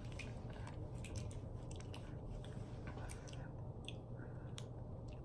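Faint, scattered clicks and crinkles from a small plastic-wrapped snack package being picked up and handled, over a steady low hum.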